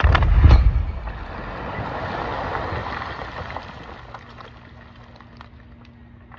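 Dynamite blast in rock under blasting mats: a deep boom at the start, then a rushing rumble of shattered rock and debris that fades over about three seconds, with scattered small ticks as pieces settle.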